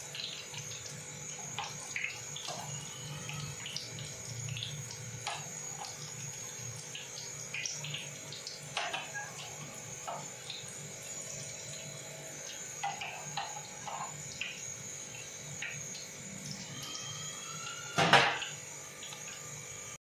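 Breaded kababs deep-frying in hot oil in a steel pot: a steady sizzle, with scattered sharp clicks of metal tongs and a wire skimmer against the pot. A louder knock comes near the end.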